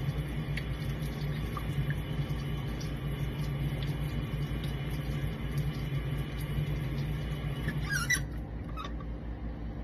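A baby monkey gives a brief, wavering, high-pitched squeak about eight seconds in, with a fainter one just after. Under it runs a steady low hum with faint scattered ticks of water and handling in the sink.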